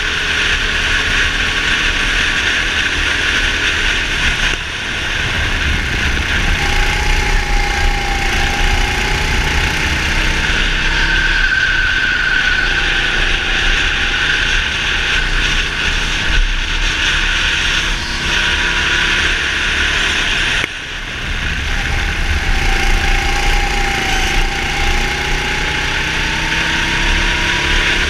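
Racing kart engine heard onboard at speed, its pitch climbing steadily as it pulls down the straights. The note cuts off sharply twice, a few seconds in and again about three-quarters of the way through, as the throttle is lifted, then picks up again.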